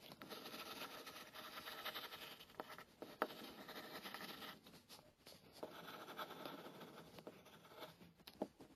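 Coloured pencil scratching rapidly across paper as a patch is shaded in, in two stretches with a short pause about five seconds in and a sharp tick a little after three seconds. It stops near the end.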